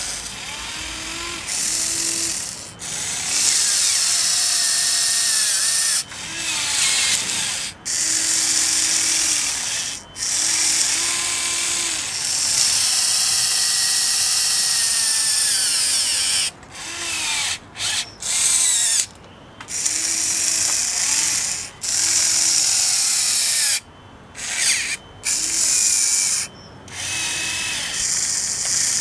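The electric drive motors of a Huina 580 RC excavator whine in stop-start runs of one to several seconds, the pitch rising and falling as the arm and ripper are worked into the soil.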